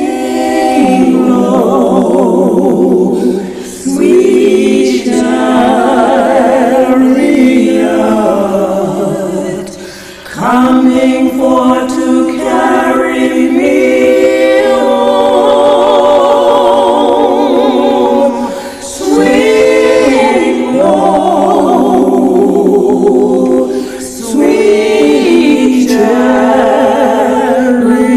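Unaccompanied choir singing slow, long-held phrases with vibrato. There are brief breaks between phrases, about four times.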